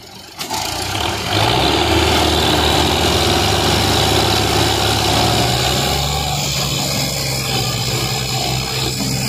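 Fiat 480 tractor's diesel engine opening up suddenly about half a second in and running hard at high revs under heavy load, straining to tow a stuck Belarus tractor and loaded trailer out of mud.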